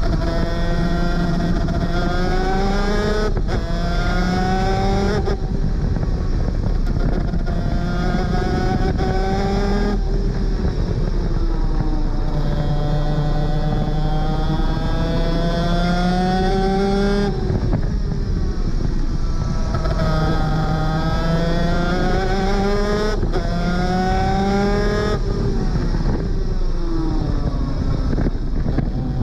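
250cc two-stroke superkart engine run hard: the pitch climbs, drops sharply at each upshift and climbs again, and in a couple of stretches falls away as it slows for corners.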